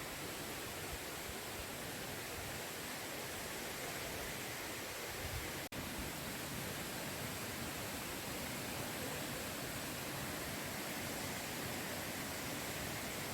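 Mountain valley stream rushing over rocks, a steady even wash of water noise, broken once a little before halfway by a momentary dropout.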